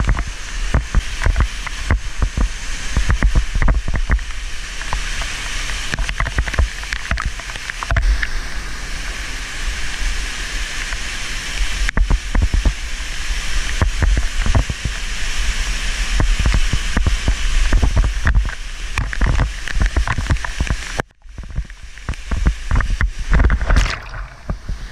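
Waterfall pouring and splashing right onto a helmet-mounted camera during a rope descent: a loud steady rush of falling water with a heavy low buffeting and many thumps of water striking the camera. The sound drops out sharply for a moment near the end.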